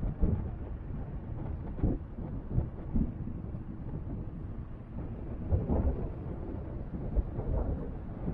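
Wind buffeting the microphone on an outdoor walk: a low rumble broken by irregular gusty thumps.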